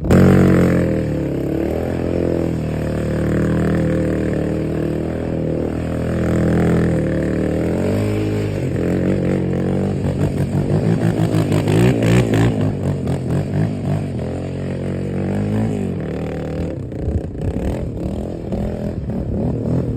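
ATV engine revving hard and easing off again and again as the quad does drifts and donuts on dirt. Its pitch climbs and drops repeatedly, with a brief lull about eight seconds in and a larger drop near the end.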